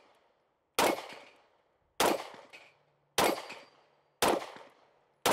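Taurus GX4 XL 9mm pistol fired in slow, evenly paced single shots. There are four sharp reports about a second apart, each followed by a short fading echo, and a fifth just at the end.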